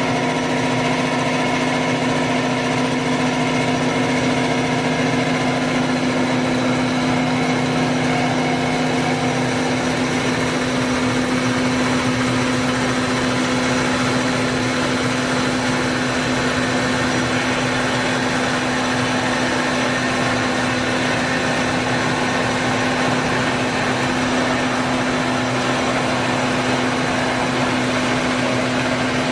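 Kotec Newrun 10DX H-beam drilling machine running: a steady mechanical hum with several constant whining tones above it, and a lower drone that fades out about ten seconds in.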